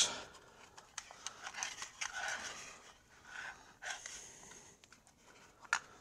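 Plastic recoil starter pulley being turned by hand in its metal housing to wind preload onto the rewind spring: faint scraping and rustling with light clicks, and one sharper click near the end.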